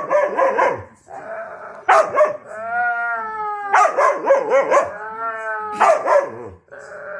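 Siberian huskies 'talking' at each other: drawn-out howling whines that slide and fall in pitch, broken by louder, rougher barking bursts about every two seconds.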